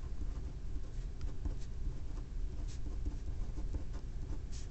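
Ballpoint pen scratching on paper in a run of short writing strokes, over a low steady background rumble.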